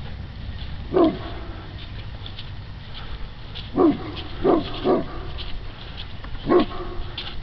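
A dog barking the alarm in short single barks: one about a second in, three close together in the middle, and one more near the end.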